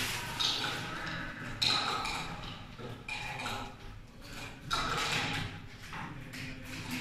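Irregular metallic knocks and clinks with a short ring after each, from hand work on a high-speed roller door's drive motor unit.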